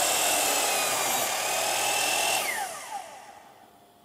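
Bosch compound miter saw running as its blade slices a 45-degree miter through wooden crown molding. About two and a half seconds in, the motor is switched off and the blade winds down with a falling whine.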